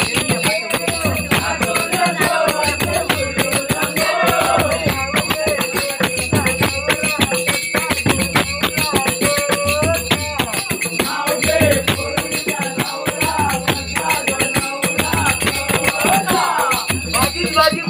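Live folk music for a Holi Gomu dance: a fast, steady drumbeat with dense metallic jingling and rattling, and voices singing or chanting over it.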